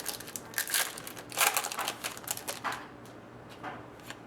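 Trading cards being handled: a quick run of sharp clicks and papery rustles as cards are slid and shuffled. The clicks are busiest in the first three seconds, then fade to a few faint ones.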